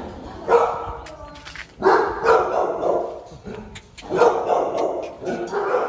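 Dog barking repeatedly, in short runs of barks about every second or two.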